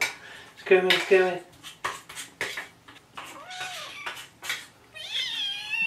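Hungry kittens meowing for food: a couple of faint high meows midway and a louder, longer, wavering one near the end. A man's brief word and a few sharp clicks come in between.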